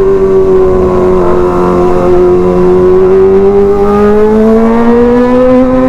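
Kawasaki ZX-25R's 249 cc inline-four running at high revs through an SC Project titanium aftermarket exhaust. The note holds steady, dips slightly, then climbs gradually near the end as the bike accelerates.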